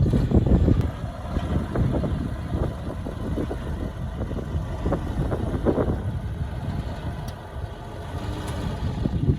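Diesel engine of heavy earthmoving machinery running with clattering, loudest at the start, easing off in the middle and building again near the end.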